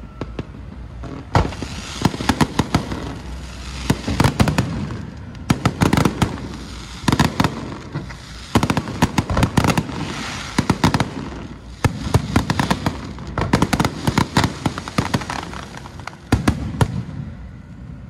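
Fireworks going off in a barrage: rapid sharp cracks and bangs in dense clusters, one volley after another every second or so.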